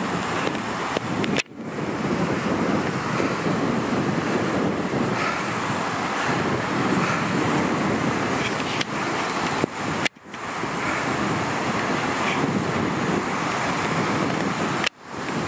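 Wind buffeting the microphone over the steady wash of breaking waves. The sound cuts out abruptly three times and swells back in over about a second.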